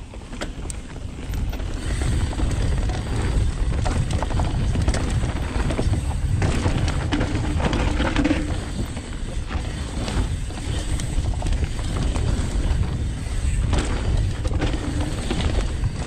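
Mountain bike running fast down a dry dirt trail: a steady low rumble of wind buffeting and tyre roar, with scattered clatters from the bike over the rough ground.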